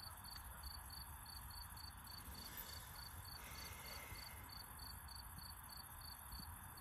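Crickets chirping: a faint, steady train of short high chirps, about five a second, over a low hiss.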